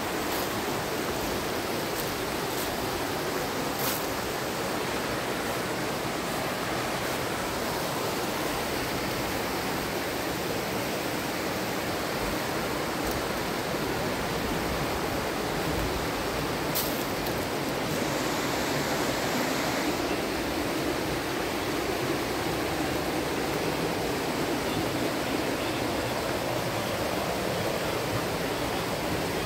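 Small mountain stream rushing and splashing over rocks, a steady even rush of water.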